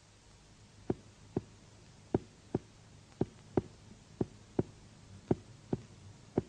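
Clinical finger-on-finger percussion: a finger tapping sharply on a finger laid on the body, struck in double taps, a pair roughly every second, starting about a second in. It is used to find the border of the liver's dullness.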